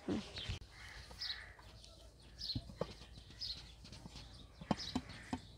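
Quiet yard sound: small birds chirping now and then, with a few light knocks scattered through.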